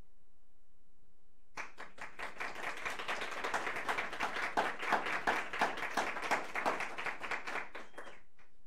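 Audience applauding at the end of a talk. It starts about a second and a half in and dies away near the end.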